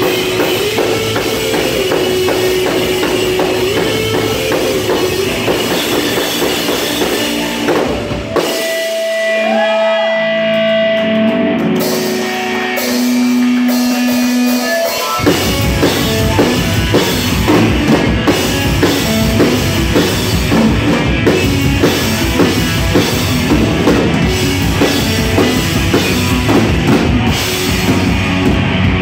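Live rock band, electric guitars and drum kit, playing loudly. About eight seconds in the drums and low end drop out, leaving a few held electric guitar notes, one bending in pitch. The full band comes back in about fifteen seconds in.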